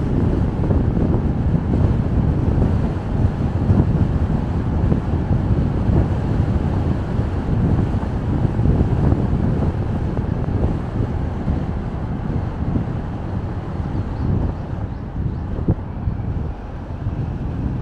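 Steady low rumble of wind and road noise from a car being driven, with no distinct tones or events.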